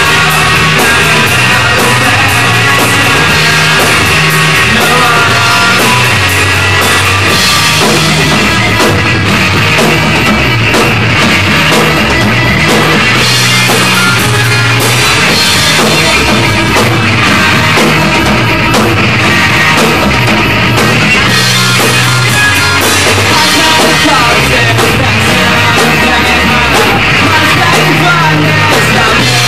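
A rock band playing live and loud, electric guitar among the instruments.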